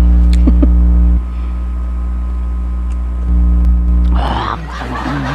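Loud electrical mains hum and buzz from a grounded lapel microphone. Its level steps down and up a few times, and a short noisy rustle comes about four seconds in.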